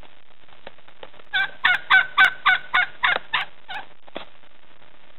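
Domestic turkey tom gobbling: a loud run of about nine quick pitched notes, roughly four a second, starting about one and a half seconds in and tailing off after about two and a half seconds.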